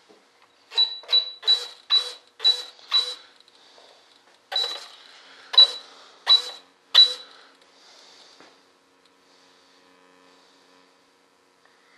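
Radio-control transmitter giving short click-beeps as its buttons are pressed while programming: six quick ones about two a second, then after a pause four more, more spread out. A faint steady hum follows.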